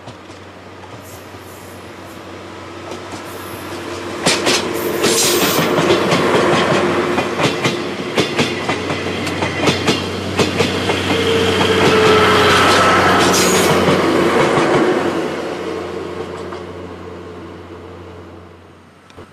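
Diesel-hauled train of DE10 diesel-hydraulic locomotives and 14-series passenger coaches passing by, its wheels clicking rapidly over the rail joints. It grows loud about four seconds in and fades away near the end.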